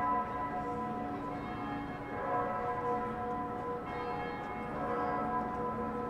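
Several church bells ringing together, their ringing tones overlapping, with new strikes sounding every half second or so.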